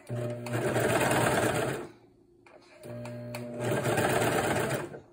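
Brother overlock serger stitching fabric in two runs with a short stop between. Each run starts slower and picks up speed, a steady motor hum with the clatter of the stitching.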